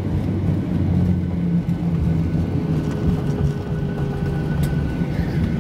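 Cabin noise aboard a Boeing 737-900ER rolling on the ground after landing: a steady low rumble from its CFM56-7B engines and the airframe, with a faint steady hum over it.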